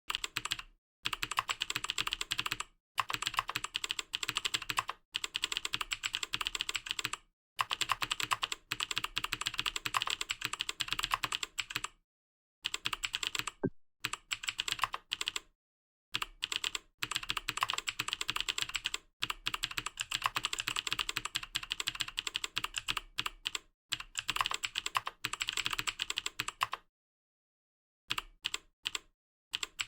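Fast typing on a computer keyboard: rapid, dense runs of keystroke clicks lasting a few seconds each, broken by brief pauses.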